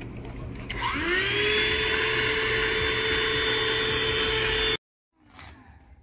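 Fityou cordless handheld vacuum cleaner switching on about a second in, its motor whine rising in pitch as it spins up, then running steadily with a high whine over a rush of air. The sound cuts off abruptly after about five seconds.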